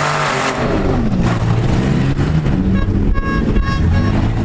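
Demolition-derby compact cars' engines revving up and down, with a horn giving about five short beeps in the second half.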